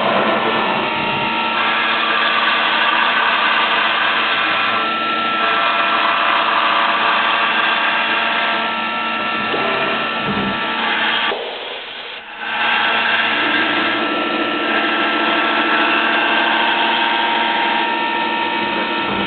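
Fadal CNC mill running a machining cycle: its spindle and axis drives give a steady mechanical whine of several tones. It dips briefly about twelve seconds in, then carries on at a new pitch.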